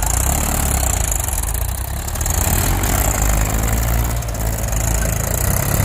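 Diesel engines of Mahindra farm tractors running steadily, slightly louder from about two seconds in.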